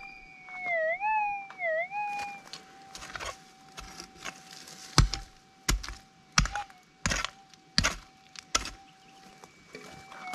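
Minelab GPX 4500 metal detector's steady threshold hum, wavering down in pitch twice as it sounds a target signal. Then a prospecting pick strikes into the ground over the target, a few light blows and then six heavy ones about two-thirds of a second apart, while the hum carries on. It cuts out briefly near the end and comes back wavering on the target again.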